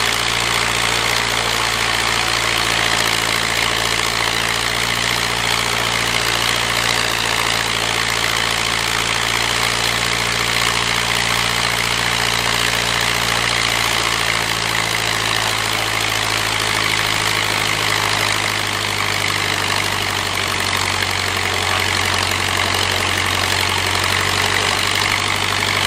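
The Tiger Moth's 130 hp de Havilland Gipsy Major four-cylinder inverted engine running steadily at low power with the wooden propeller turning, during a magneto check. Its note dips slightly a little over two-thirds through.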